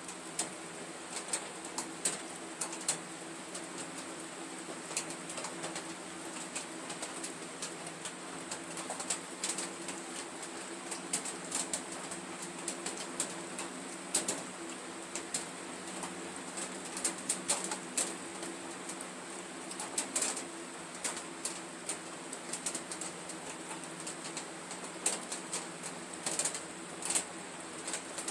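Solution boiling hard in a glass beaker on an electric hotplate: irregular crackling pops of bursting bubbles over a steady low hum.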